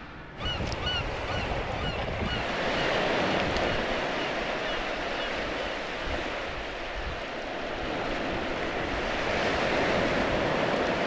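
Surf breaking and washing up the beach in a steady rush of waves, with a bird chirping repeatedly over it during the first few seconds.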